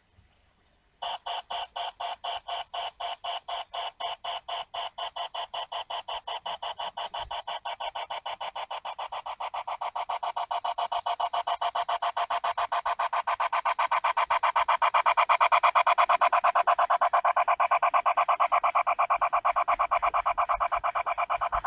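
G-scale model geared steam locomotive running with a fast, even chuffing beat that starts about a second in and grows louder as the engine approaches, easing slightly near the end.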